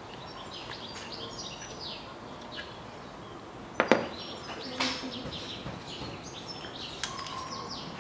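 Small birds chirping continuously in the background. A few sharp clicks and knocks of hand tools and parts being handled in a car's engine bay break through, the loudest a quick pair about four seconds in.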